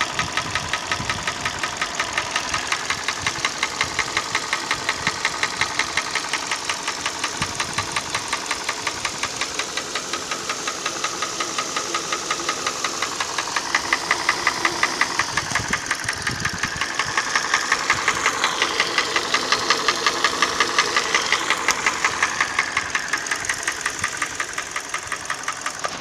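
Hyundai ix35 petrol engine running with a steady, rhythmic knock that keeps time with the engine. It is an unexplained engine knock whose cause the owner does not know.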